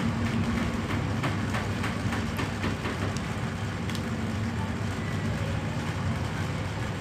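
Steady low background rumble, like a running engine or nearby traffic, with a few light clicks and taps about one to four seconds in.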